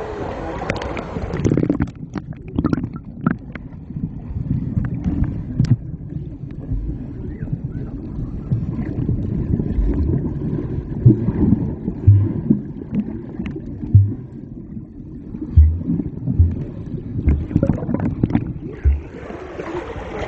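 Muffled water sloshing and gurgling close to the microphone, with irregular low thumps.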